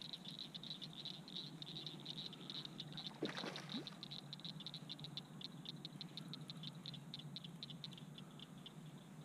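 Night-time chorus of rapid, even clicking calls, several a second, over a faint steady background hum, with one short louder rush about three seconds in.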